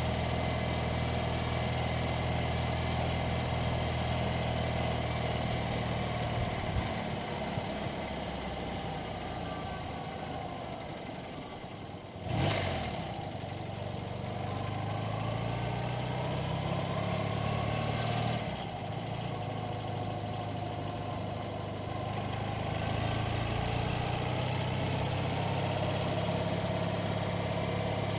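1982 BMW 980cc motorcycle's air-cooled flat-twin engine running, heard from on the bike. The engine note eases off for a few seconds, then surges suddenly and loudly about twelve seconds in, and shifts twice more before settling into a steady run.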